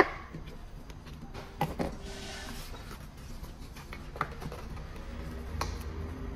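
Cardboard smartphone box and its plastic wrapping being handled during unboxing: a few sharp taps and clicks, and a short rustle of plastic film about two seconds in.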